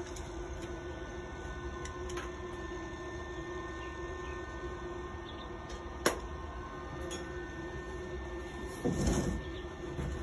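Electric arc welding on a steel seat lock: a steady hum and hiss from the arc, broken by a sharp click about six seconds in and a short louder noise near the end.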